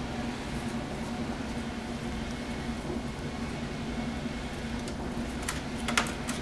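Steady mechanical hum with a low tone. Near the end come a few light clicks and one louder knock as a kitten jumps up against a plastic milk crate.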